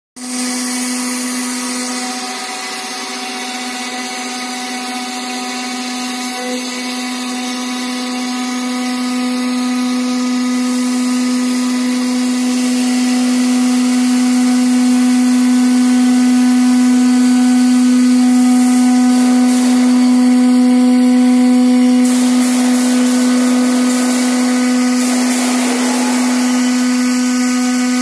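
A woodworking CNC router's spindle motor runs with a steady whine while its bit cuts a groove into a wooden board. A hissy cutting noise grows louder over the last several seconds.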